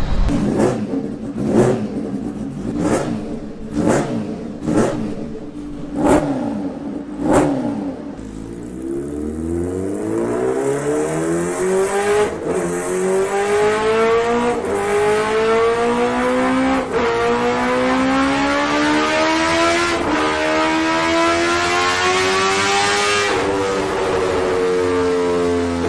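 Kawasaki Ninja H2R's supercharged inline-four engine, first revved in about seven sharp throttle blips. Then comes a long full-throttle dyno pull through the gears: the engine pitch climbs steadily and drops back with each of five upshifts.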